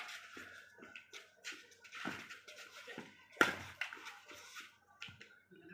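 Badminton rackets striking a shuttlecock in a rally: several sharp cracks about a second apart, the loudest about three and a half seconds in, with softer taps and scuffs between the hits.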